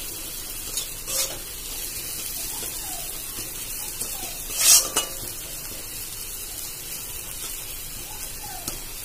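Onion and spice masala sizzling in oil in a metal kadai while a metal spatula stirs and scrapes it, with two louder scrapes, about a second in and near five seconds. This is the masala being fried down until the oil separates from it.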